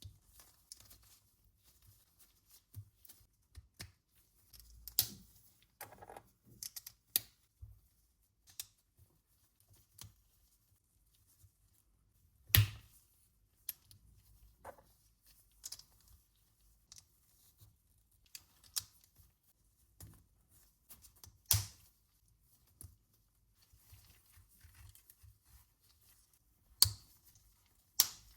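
LEGO bricks being handled and pressed together: scattered light plastic clicks and rattles, with a few sharp louder snaps, the loudest about twelve and a half seconds in and again near twenty-one and twenty-seven seconds.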